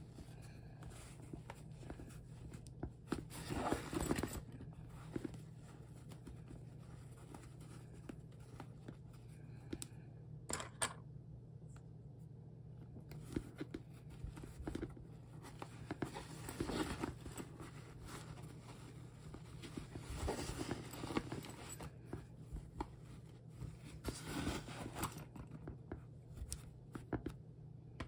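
Thick vinyl tote bag being handled and squeezed: irregular rustling and rubbing of the stiff vinyl in several bursts, over a steady low hum.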